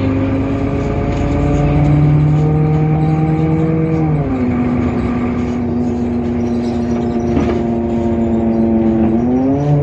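DAF PR228 six-cylinder diesel engine of a Temsa Avenue LF city bus, heard on board, running with a steady tonal hum. Its pitch drops about four seconds in, holds, then rises again near the end.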